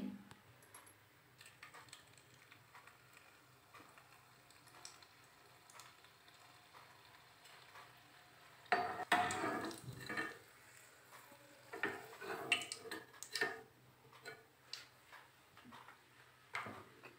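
A few short knocks and clinks of cookware being handled on a gas stove, mostly in the second half, between stretches of near-quiet kitchen room tone.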